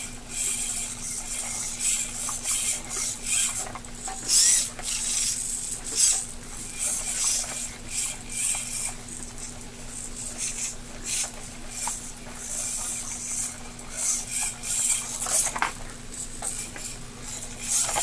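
Tower Pro MG995 hobby servos in a robotic arm whirring in many short, irregular high-pitched bursts as the joints move, over a steady low hum.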